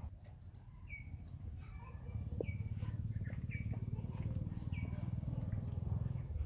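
A bird chirping over and over, a short call roughly once a second, above a steady low rumble.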